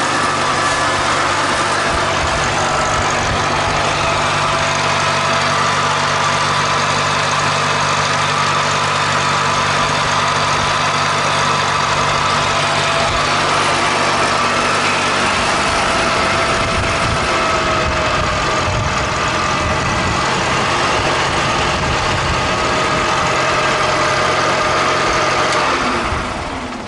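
1958 Farmall Cub's four-cylinder flathead engine running steadily, its exhaust freshly patched with a short piece of pipe tacked on at the manifold. The sound fades away near the end.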